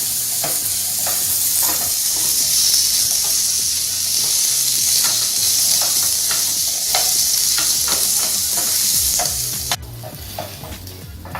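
Cubed red potatoes sizzling in hot olive oil in a frying pan while being stirred, the utensil clicking and scraping against the pan. The sizzle drops away suddenly about ten seconds in.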